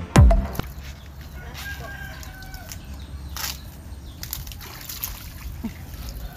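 The last of an electronic music sting, ending about half a second in, then outdoor ambience. A rooster crows faintly about a second and a half in, and there is splashing and rustling of water and leaves as taro stalks are pulled from a muddy ditch.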